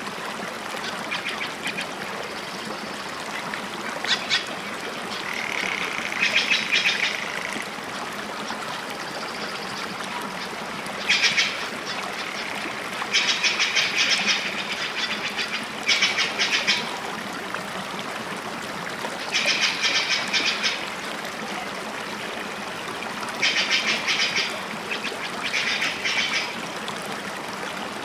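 Nature ambience: a steady rush of running water with short bursts of rapid, chattering bird calls every few seconds.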